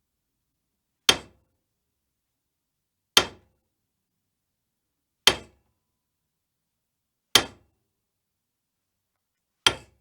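Hammer striking metal, five single sharp blows about two seconds apart, each with a brief ring.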